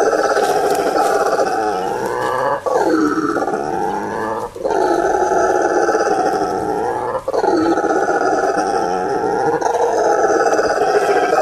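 Brown howler monkey giving its loud territorial howl, a continuous deep roar broken by three brief breaks.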